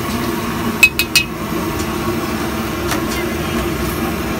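A metal ladle knocked three times in quick succession against the iron wok, each knock ringing briefly, about a second in. A steady low hum, likely the stall's gas burner and street noise, runs underneath.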